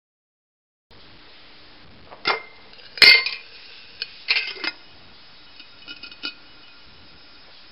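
Metal screw lid and hanging wire clinking against a glass jar as the lid is set on: a few sharp clinks, the loudest about three seconds in, followed by a few faint ticks.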